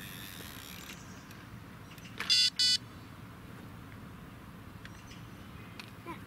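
Electronic carp-fishing bite alarm giving two short beeps about a third of a second apart, a little over two seconds in: line moving at a rod.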